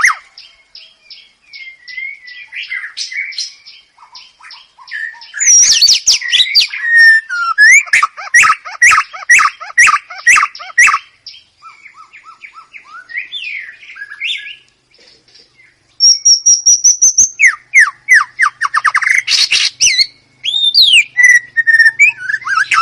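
White-rumped shama (murai batu) singing a long, varied song of clear whistles, rapid runs of repeated notes and trills, with a quieter stretch midway before loud phrases resume.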